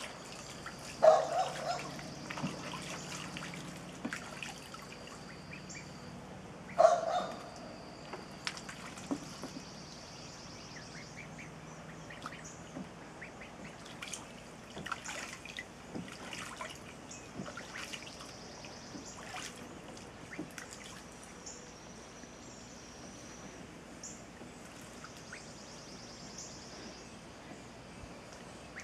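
Ducklings bathing in a shallow plastic paddling pool, the water splashing and dripping in many small irregular splashes. Two louder short sounds come about a second in and again about seven seconds in, over a steady high tone in the background.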